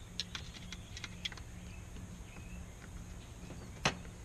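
Light clicks and taps of a screwdriver working a mounting screw on an outboard's primer solenoid: a scatter of small clicks in the first second and a half, then one sharper click near the end.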